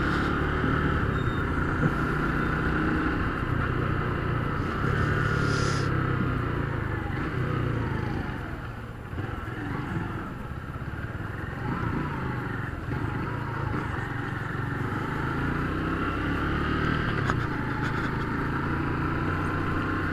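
Motorcycle engine running while being ridden on a wet road. Its note drops for a couple of seconds near the middle, as it slows through a broken, puddled stretch, then picks up again.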